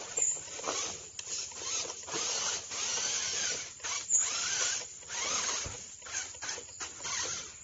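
Radio-controlled 4x4 car's small electric motor and geared drivetrain whining as it climbs a plywood ramp. The whine comes in stretches of about a second with short breaks between them, with a few sharp knocks from the wheels on the board.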